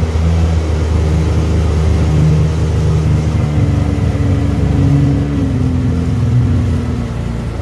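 1997 Sea-Doo GTX personal watercraft's two-stroke engine running at low speed, puttering along with a slightly wavering note that drops off near the end. The craft cannot get up on plane because river debris is clogging the intake grate.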